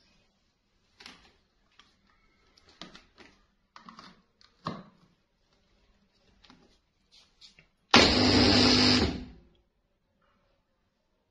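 Silver Crest SC-1589 power blender's motor run in one short burst of about a second and a half, loud and sudden, with a glass bottle in the jar. Before it come a few light clicks and knocks from hands on the lid and the control switches.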